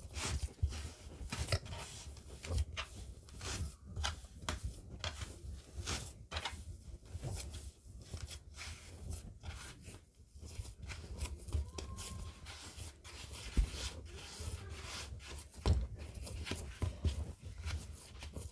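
Hands kneading dough on a floured plastic cutting board: irregular soft thuds and rubbing scuffs as the dough is pressed, folded and pushed against the board.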